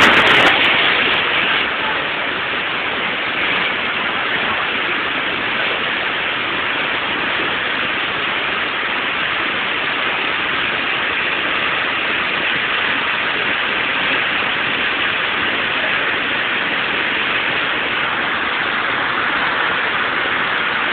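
A river in flash flood rushing steadily, its whole churning torrent a continuous, even noise.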